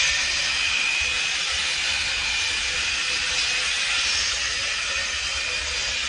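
Makita cordless hedge trimmer running steadily as its blades clip through a dense hedge: a constant buzzing hiss with a thin high whine on top.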